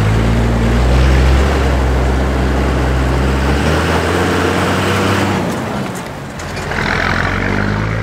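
A motor vehicle's engine running steadily with a low hum, dipping briefly about six seconds in.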